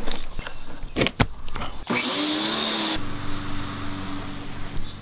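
A few sharp clicks and knocks, then a small motor starts a steady whirring hum about two seconds in. A loud hiss comes with it for about a second, and the hum runs on more quietly.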